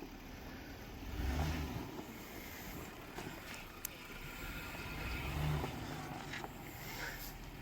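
Off-road vehicle engine running at low speed, revved up in two short surges, about a second in and again around five seconds. There are a few sharp knocks and clicks in between.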